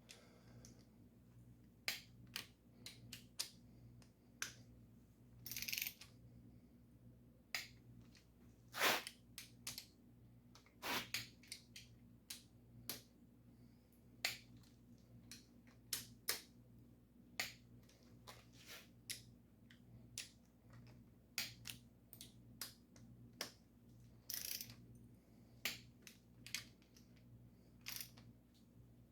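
Torque wrench clicking as small-block Chevy cylinder head bolts are tightened on a first pass to 20 foot-pounds: scattered sharp clicks and a few short ratcheting runs, over a faint steady low hum.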